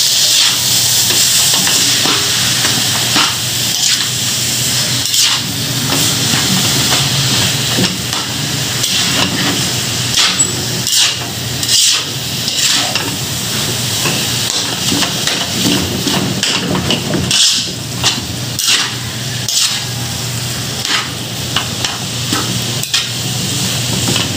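Ground pork and minced carrots, celery and garlic sizzling in oil in a metal wok, with a metal spatula scraping and knocking against the pan at irregular moments as the mixture is stirred.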